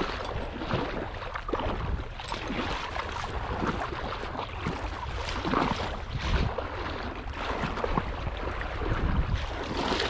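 Legs in waders wading through shallow marsh water: irregular sloshing and splashing with each step, over a low rumble of wind on the microphone.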